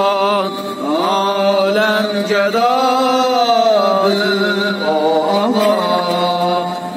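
A man's voice chanting a slow, melismatic Shia lament for Karbala, in long held notes that glide and waver in pitch, over a steady low hum.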